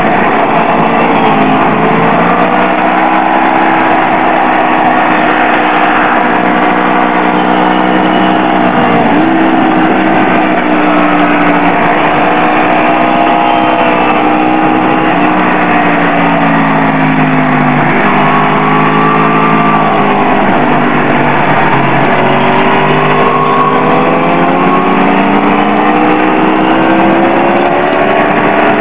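Sport motorcycle engine heard onboard at track speed over rushing wind, its note rising and falling with the throttle. The pitch sags through corners, jumps up sharply twice, about a third and two-thirds of the way in, as it downshifts, then climbs steadily near the end as the bike accelerates.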